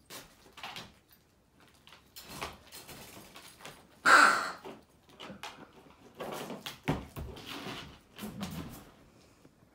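German Shepherd puppy shifting around inside a wire dog crate: a run of rustling, scraping and rattling, the loudest a harsh burst about four seconds in.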